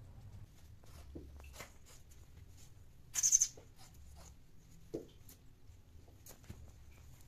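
Persian cat rolling on its back on a tiled floor: soft scuffing and rubbing of fur and paws on the tiles, the roll a queen typically does after mating. One short, loud rasp comes a little over three seconds in, and a small knock near five seconds.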